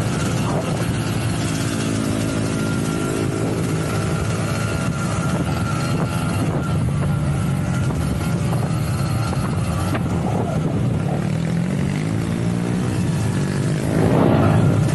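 Motor vehicle engine running steadily, its pitch rising and falling a few times in the second half, with a louder swell near the end.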